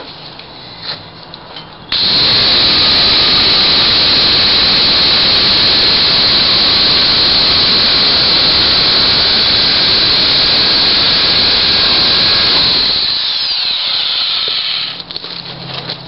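Titan electric pole chainsaw starting abruptly about two seconds in and running steadily as its chain cuts through a log about four inches thick. Near the end the motor winds down with a falling pitch and stops.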